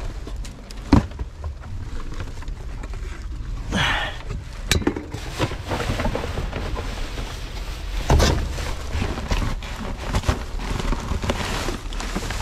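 Black plastic garbage bags rustling and crinkling as gloved hands rummage through them in a dumpster, with scattered knocks and clunks of rubbish being moved. A sharp knock about a second in is the loudest sound.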